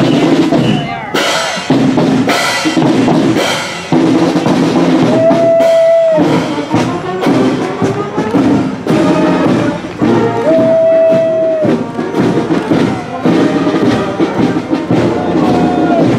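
Marching band playing with heavy drumming, and a held note about five seconds in and again about ten seconds in.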